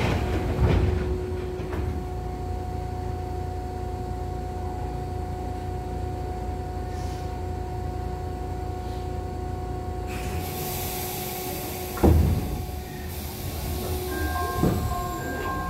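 Inside a Nishitetsu 600-series electric train car standing at a station: the sliding doors knock shut about a second in. The car's equipment then hums steadily, with a low rumble and two steady tones. A high hiss of air starts about ten seconds in, a single loud clunk follows about two seconds later, and another knock comes near the end as the train gets ready to move off.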